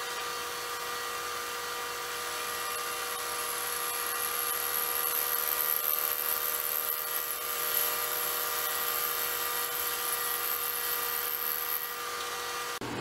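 Milling machine spindle running with a cutter fed into a metal part, several steady tones with a high-pitched cutting whine that sets in a couple of seconds in and stops near the end.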